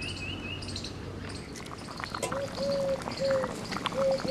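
Birds chirping outdoors, with a short rising trill at the start; from about halfway a bird gives four low hooting notes in a row. Quick ticks and pops run under the calls over the same stretch.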